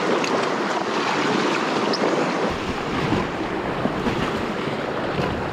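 Rushing whitewater of a Main Salmon River rapid, heard close up from an inflatable kayak, as a steady dense wash. A low rumble of wind on the microphone joins about halfway through.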